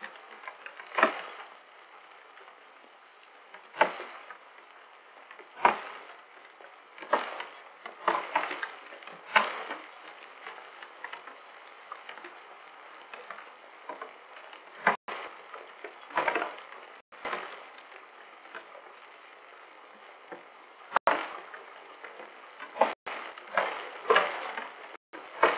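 Hailstorm heard through a security camera's microphone: a steady hiss of rain and hail, with irregular sharp cracks of hailstones striking close to the microphone, roughly one every one to two seconds.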